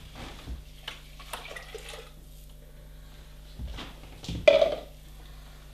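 Chicken stock being poured into a soup pot: faint pouring and handling noises, with one sharp knock about four and a half seconds in, over a steady low hum.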